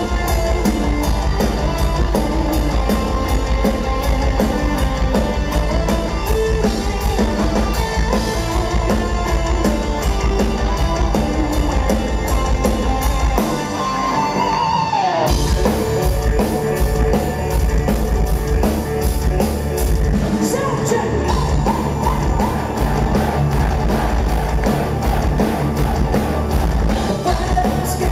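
Power metal band playing live through the venue's PA: keyboard, electric guitars, bass, fast drumming and a lead singer. About fourteen seconds in, the drums and bass drop out briefly while a single note slides down, then the full band crashes back in.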